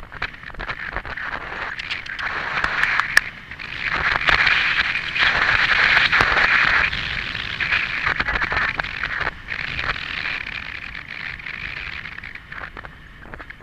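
Rushing, crackling noise on a helmet camera's microphone as the horse travels fast across country: moving air and the rider's flapping sleeve rubbing near the microphone, with scattered sharp clicks. It swells loudest from about four to seven seconds in.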